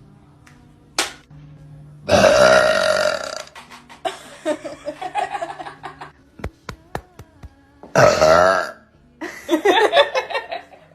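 Young women burping loudly, several belches one after another, the longest drawn out for more than a second about two seconds in. A few sharp clicks come between them.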